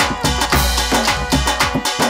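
Live instrumental bhajan music: a fast, steady drum rhythm with several strikes a second over held melodic tones, no singing.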